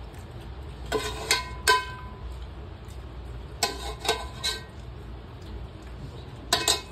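Dishes and utensils clinking during a meal: short sharp taps in three small groups of two or three, some with a brief metallic ring, over a steady low hum.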